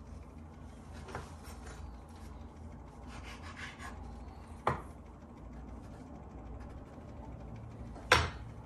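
A kitchen knife scraping and cutting dough on a cutting board, with two sharp knocks of the knife against the board, the louder one near the end.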